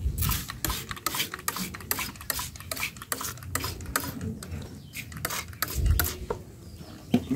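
Hand trigger spray bottle misting water into a bird cage: a quick hiss with each pull of the trigger, many squirts in a row at about three a second.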